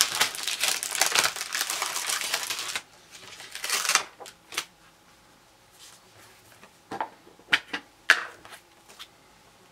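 Plastic packaging of a clear stamp sheet crinkling and rustling as it is handled for about three seconds, then a few separate light plastic clicks and taps as the stamp and the ink pad case are handled.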